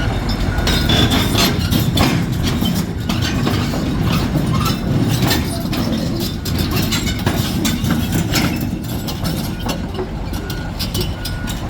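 Tracked excavator running, its diesel engine rumbling while the steel crawler tracks clank repeatedly as it moves.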